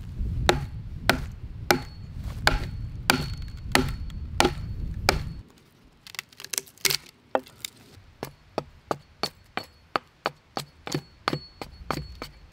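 Axe chopping into wood: sharp strokes about every two-thirds of a second. About halfway through, quicker, lighter hatchet strokes take over, about three a second, hewing down the edge of an upright plank.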